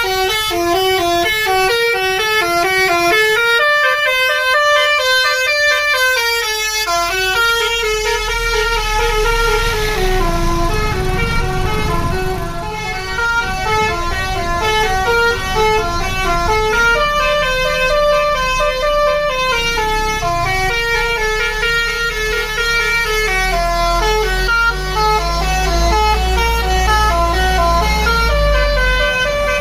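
A tronton tour bus's telolet musical horn playing a tune of quick stepped notes, going up and down in pitch. The bus's engine runs low underneath, louder near the end.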